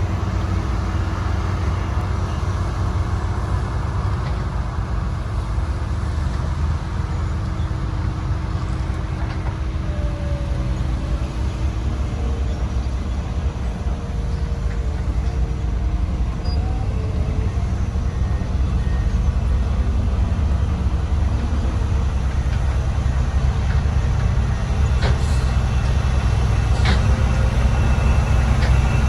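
Motor grader's heavy diesel engine running steadily, growing louder over the last ten seconds, with a couple of faint clicks near the end.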